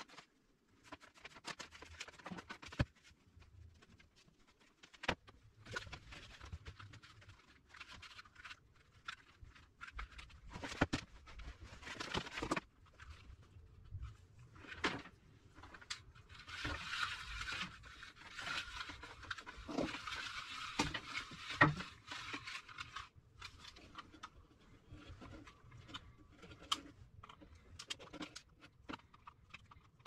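Handling noises from a vacuum cleaner's plastic retractable cord reel and its power cord: rubbing and rustling along the cable, with scattered sharp clicks and knocks against the wooden bench. A longer stretch of rustling comes about halfway through, as the cord is drawn from the reel.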